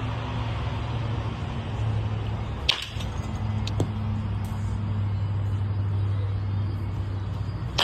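A baseball bat hitting a ball once, a sharp crack about three seconds in, with another crack right at the end, over a steady low hum.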